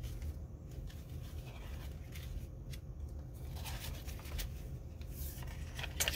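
Pages of a handmade paper journal being turned by hand: a series of soft papery rustles and light taps.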